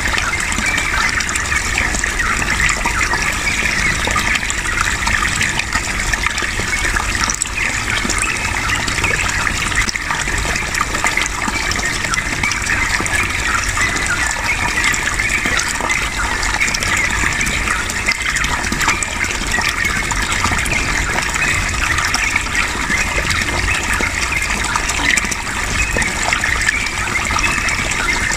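Running water flowing and splashing steadily, an even rushing sound with no break.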